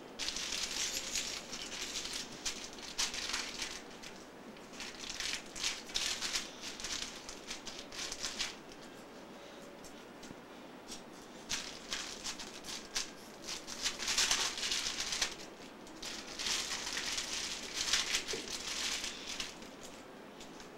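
A heap of small plastic toy pieces rummaged through by hand, clattering and rattling in four spells of a few seconds each with short pauses between.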